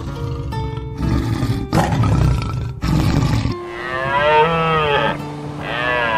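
A tiger growling in rough, low bursts for about three and a half seconds. Then come two drawn-out deer calls, each rising and falling in pitch, the second starting about a second after the first ends. Plucked background music plays underneath.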